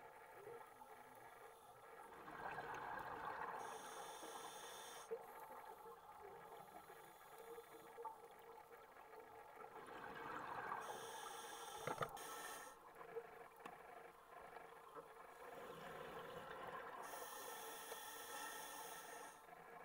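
Breathing through a scuba regulator underwater: three slow breaths, each a rush of exhaled bubbles and a high hiss. A sharp click comes near the middle.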